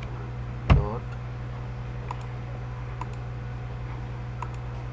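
Three faint computer mouse clicks over a steady low electrical hum, with one short, loud voice-like noise, such as a cough or grunt, about three-quarters of a second in.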